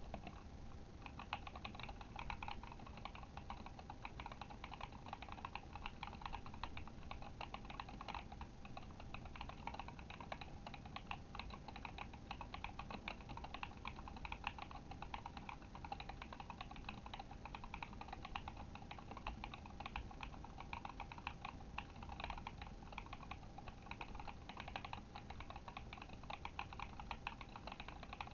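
Continuous typing on a Kemove Shadow mechanical keyboard fitted with Glorious Panda tactile switches: a fast, unbroken run of keystroke clacks.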